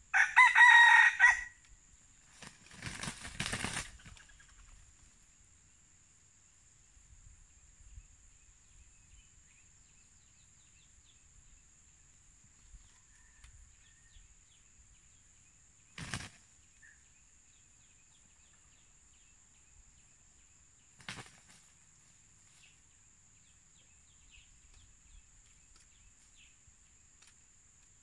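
A red junglefowl rooster crows once, loudly, right at the start. About two seconds later comes a burst of wing flapping, followed by two short sharp knocks, one near the middle and one later, as the roosters square off. Between these there is only a faint steady insect drone and a few faint bird chirps.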